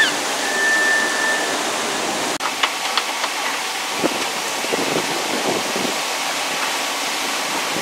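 Water rushing and spraying steadily from a broken water main, a constant hiss. A brief high whistle sounds near the start, and a few light knocks come later.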